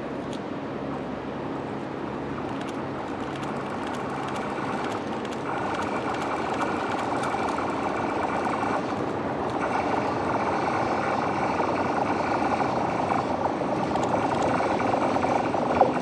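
Rhaetian Railway electric passenger train running toward the listener on a curving viaduct: a steady rumble of wheels on rail growing louder, with whining tones joining in partway through.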